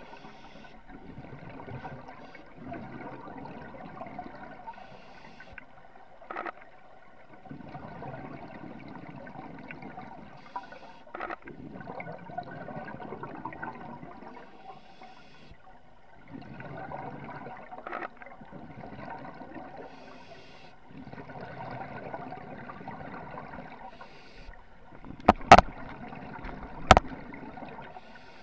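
Scuba diver's exhaled bubbles gurgling from the regulator underwater, in bursts every few seconds with the breathing. Two sharp clicks near the end.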